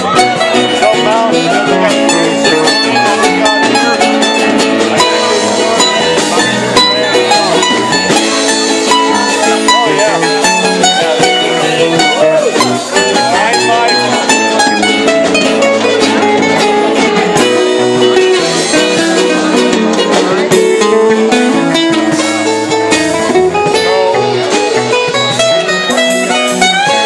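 Live rock band playing loud: a drum kit with frequent cymbal and drum hits under bass and guitar.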